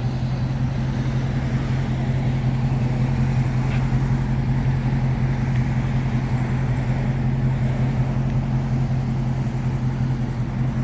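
Dodge Charger Scat Pack's 6.4-litre HEMI V8 idling steadily, a constant low hum.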